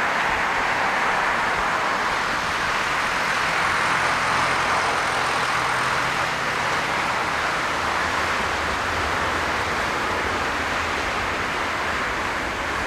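Steady jet roar of a Boeing 767-300F freighter's engines as the aircraft rolls out on the runway just after touchdown.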